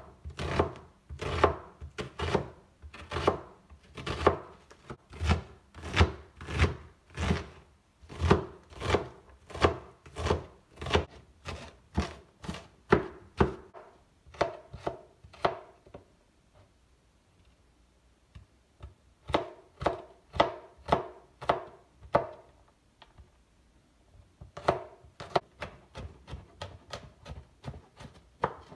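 Knife chopping on a wooden cutting board, first dicing red onion and then garlic cloves, in sharp strokes about two a second. The chopping stops for a few seconds past the middle, then resumes and gets quicker toward the end as the garlic is minced.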